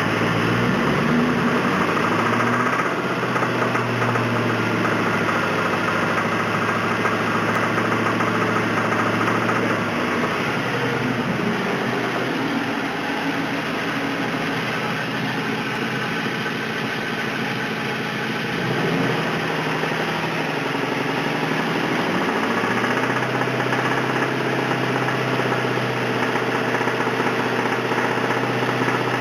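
1999 Ford Mustang GT's two-valve 4.6 V8 running with a rod knock, the engine speed shifting a few times: a connecting-rod bearing damaged by running the engine low on oil.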